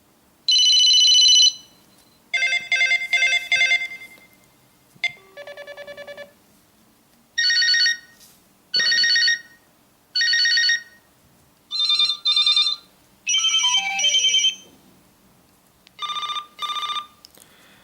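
Old-style telephone ringtones played back on an Android phone: a series of short electronic trilling rings, each around a second long with pauses between, one of them with a falling run of tones about two-thirds of the way in.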